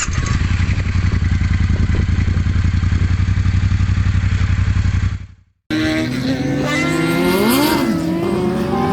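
A motorcycle engine running loud and steady, with a fast, even firing beat. It cuts off abruptly about five seconds in, and engines follow, revving with their pitch rising and falling.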